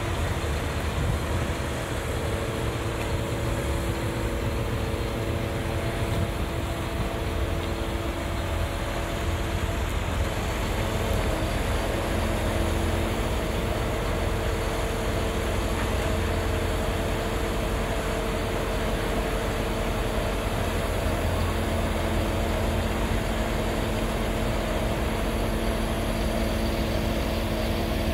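MAN TGA 33.480 truck's diesel engine running steadily, driving the hydraulics of its Palfinger PK 42502 loader crane as the boom unfolds and extends. A low rumble carries several steady whining tones whose pitch changes about ten seconds in.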